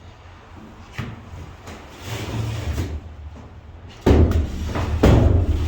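A plastic storage tote sliding along the wooden 2x2 runners of a tote rack: a light knock, a scraping slide, then two heavy knocks near the end as it is pushed into its slot.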